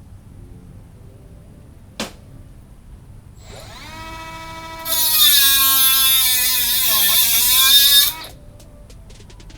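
Electric grinder spinning up with a rising whine, then grinding steel loudly for about three seconds, its pitch sagging under load before it stops. A single sharp click comes shortly before it.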